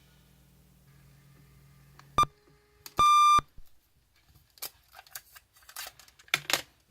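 Two electronic beeps, a short one and then a longer one about a second later, followed by a string of small clicks and knocks.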